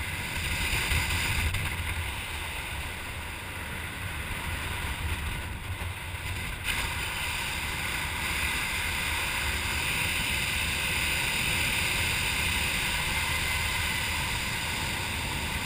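Steady airflow buffeting the microphone while flying under an open parachute canopy: a low rumble with a hiss on top, growing slightly louder in the second half.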